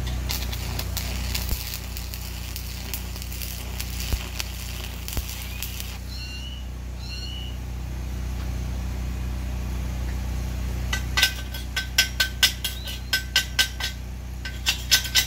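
Stick-welding arc crackling and sizzling as tack welds are laid on a steel brace for about the first six seconds, over a steady low hum. From about eleven seconds in, a chipping hammer strikes the fresh welds to knock off the slag: quick sharp metallic taps with a ringing note, about three a second.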